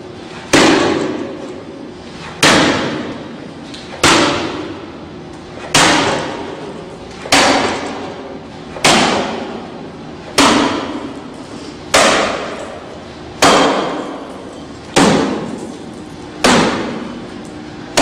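A big axe striking a cracked pane of Labov Level 3 security glass over and over, about one blow every second and a half, about eleven in all. Each blow is a sharp hit that rings and fades; the crazed glass holds.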